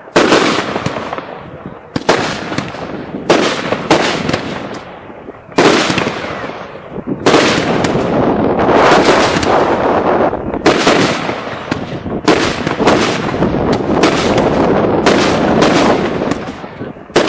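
Consumer firework cakes firing a string of aerial shells: sharp bangs about every one to two seconds, each fading off. From about halfway the bangs come close together in a steady, loud volley.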